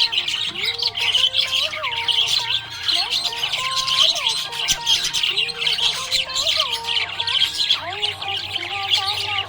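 Budgerigars chattering and chirping continuously in a dense, busy stream, with a lower gliding tune running underneath.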